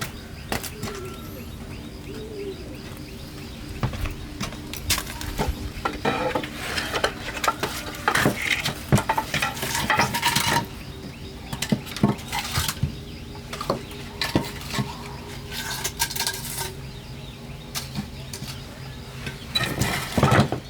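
Dishes and utensils clattering and clinking in many irregular knocks, as in handling pots, bowls and spoons.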